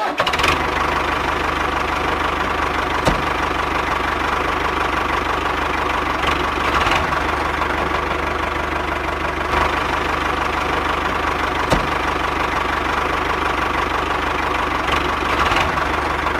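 Small motor of a miniature model engine running steadily, with a constant whine and a low pulsing hum, and a couple of sharp clicks.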